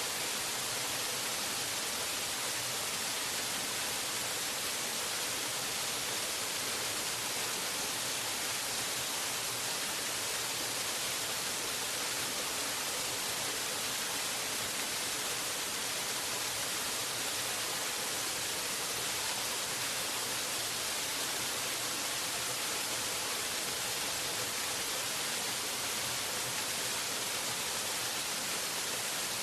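Waterfall: a steady, unchanging rush of falling water, its hiss strongest in the upper range.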